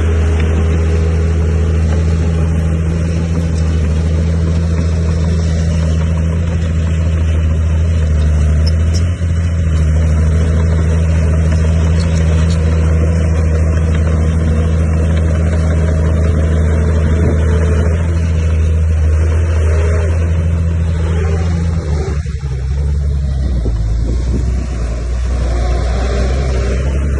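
Diesel engine of heavy earthmoving machinery running steadily under load, with a low, even drone; its pitch drops and shifts about 22 seconds in, then settles.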